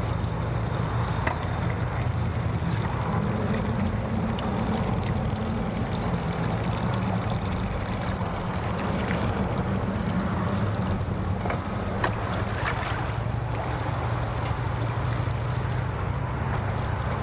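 Suzuki outboard motor on a small skiff running at idle, a steady low hum as the boat creeps in toward the dock.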